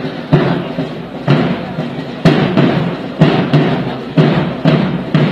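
Parade band drums beating a slow, steady march, about one strong beat a second with lighter beats between.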